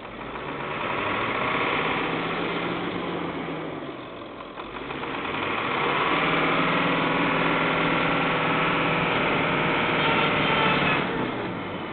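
Ford 7.3 L Power Stroke V8 turbo-diesel working under load as the pickup ploughs through deep snow. The revs rise, ease off about four seconds in, then climb again and hold before dropping near the end.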